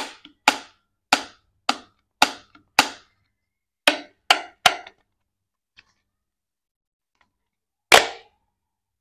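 Thin plastic surprise-egg shell clicking and crackling in the hands, about nine sharp clicks roughly half a second apart, then a pause and one louder crack near the end as the halves pop apart.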